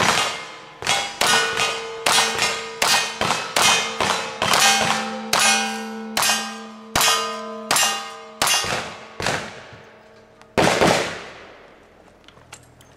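Lever-action rifle fired rapidly at steel targets, a shot about every half second, each followed by the metallic ring of the struck steel; a single louder shot comes near the end.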